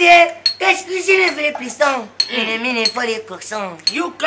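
A man talking excitedly, his voice rising and gliding in pitch. Sharp metallic clinks, each with a short high ring, keep coming every half second or so.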